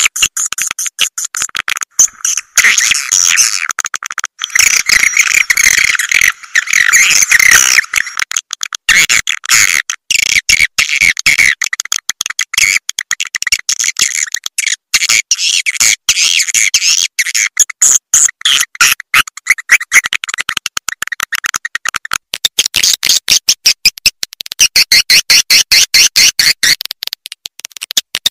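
Edible-nest swiftlet call recording of the kind played to lure swiftlets into a nesting house: dense twittering chirps and rapid clicks, all high-pitched with nothing low. Near the end it turns into a fast, even stream of clicks.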